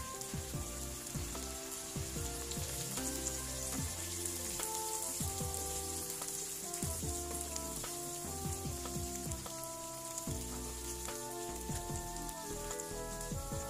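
Silken tofu and tempeh pieces deep-frying in a pan of oil, a steady sizzle as they cook to half-crisp. Background music with short stepping notes plays over it.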